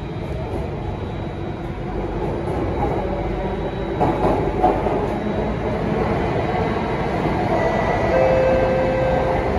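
Alstom Metropolis C830 metro train heard from inside the car as it pulls away and gathers speed into the tunnel. A rumble of wheels on rail grows steadily louder, with a burst of clatter about four seconds in. Thin steady whine tones come in near the end.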